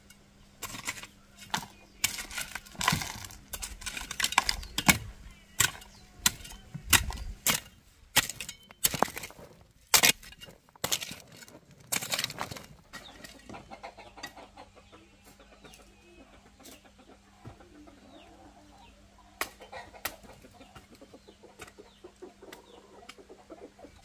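Repeated sharp, irregular blows of a long-handled digging tool working the ground for about twelve seconds, then much quieter with only occasional light knocks.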